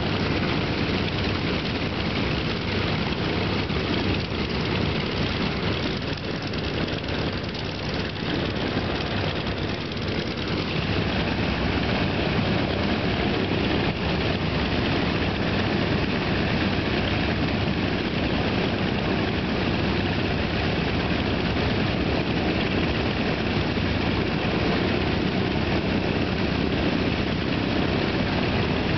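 Several North American T-28 Trojans' radial piston engines running on the ground, propellers turning, as a steady, loud drone. It grows a little louder from about eleven seconds in.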